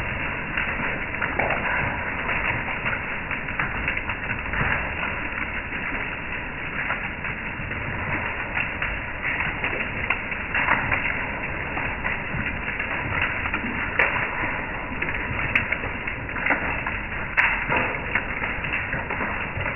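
Hail and heavy rain pelting a wooden deck and a metal mesh patio table: a dense, continuous patter of small impacts, with a few sharper clicks standing out.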